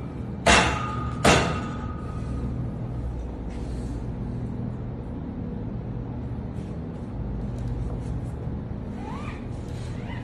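Two sharp clacks from gymnastic rings and their strap buckles being handled, about a second apart, the second ringing briefly; a steady low hum and a few faint clicks follow.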